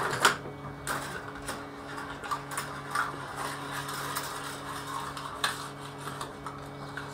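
A picture-frame band clamp being gathered up by hand: scattered clicks and knocks of its plastic corner blocks and strap reel, the sharpest just after the start and about five and a half seconds in. A steady low hum runs underneath.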